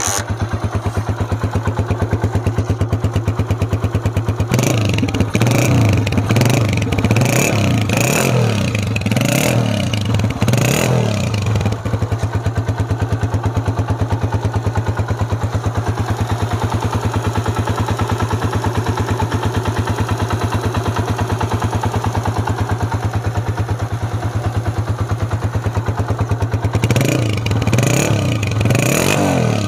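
Honda CG 125's single-cylinder four-stroke engine idling steadily through its stock chrome silencer, blipped in a quick series of throttle revs about four seconds in, settling back to idle, then revved again near the end.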